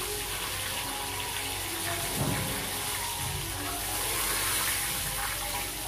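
Fish frying in hot oil in a frying pan: a steady sizzling hiss.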